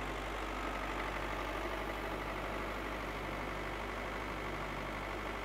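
Tractor engine sound effect, running steadily at an even level.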